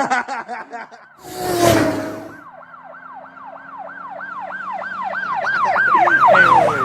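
A siren in a fast rising-and-falling yelp, about four sweeps a second, growing steadily louder over its last few seconds. Before it, near the start, comes a short loud burst of noise.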